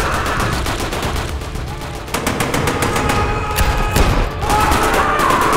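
Rapid automatic gunfire, many shots a second, growing denser and louder about two seconds in, with music underneath.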